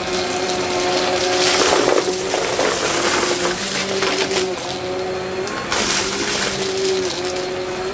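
Vacmaster upright vacuum running on carpet, its motor holding a steady whine, with bursts of crackling rattle as scattered small debris is sucked up through the nozzle. The rattling swells about a second and a half in and again around six seconds.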